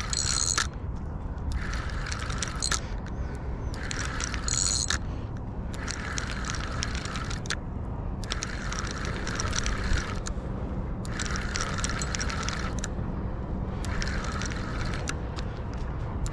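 Spinning reel being cranked in about seven or eight short bursts of a second or so each, its gears whirring and clicking, with brief pauses between, as a hooked fish is reeled in.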